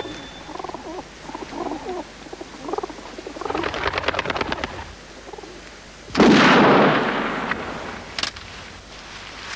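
Pigeons fluttering as they are let out of a wicker crate, with a quick flurry of wingbeats as a bird takes off. About six seconds in there is a single loud gunshot, the loudest sound, which rings out for about a second.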